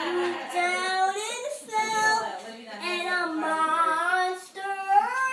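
A child singing a tune without accompaniment, in several short phrases with sliding pitch.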